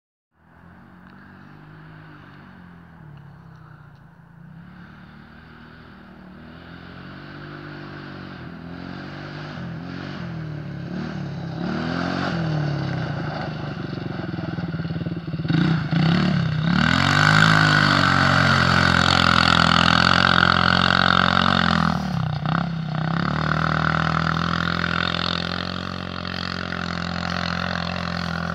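Lucky Star SP250 sport quad's engine revving up and down over and over as it is ridden, getting louder as it comes closer and loudest about two-thirds of the way in.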